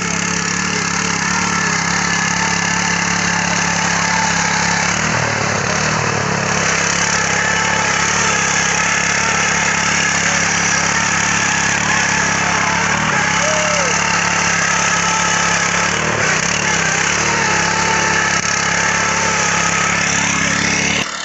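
Small engine of a walk-behind power tiller running steadily under load as its rotary tines churn the soil.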